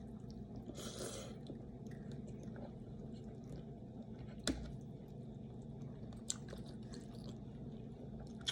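A person chewing a mouthful of rice and vegetables, with faint clicks and one sharper click about four and a half seconds in, over a steady low hum.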